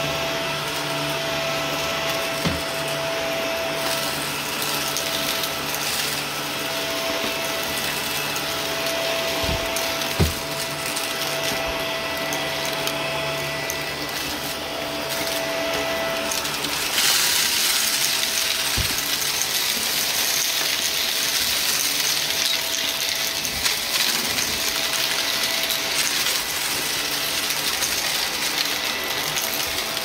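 Upright vacuum cleaner running steadily over carpet, its motor hum under a rushing airflow hiss, with a few sharp ticks as bits of debris are sucked up. A little past halfway the hiss turns brighter and louder.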